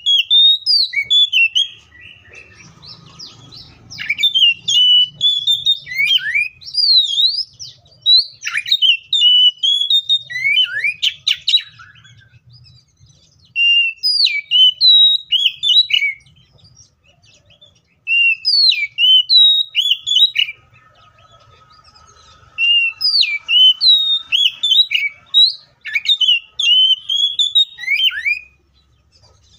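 Oriental magpie-robin (kacer) singing loud, fast runs of varied sweeping whistles, in bursts of a few seconds broken by short pauses.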